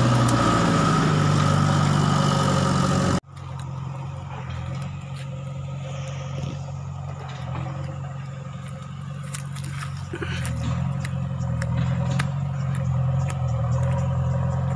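JCB backhoe loader's diesel engine running steadily, with scattered clicks and knocks of rock and soil. A louder, hissier opening stretch cuts off abruptly about three seconds in.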